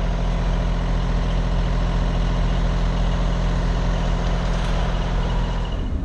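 Fire tanker's diesel engine idling steadily, a low even hum.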